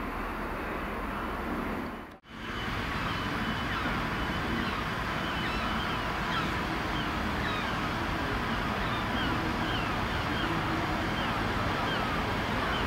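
Diesel trains running into a station: first a Class 43 HST power car's engine as it comes over the points, then, after an abrupt cut about two seconds in, the steady rumble of a distant Class 153 diesel unit approaching.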